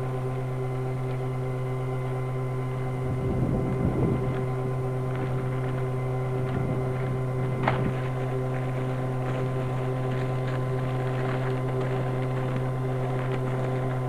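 A steady mechanical hum with several overtones, with a gust of wind rumbling on the microphone about three to four seconds in.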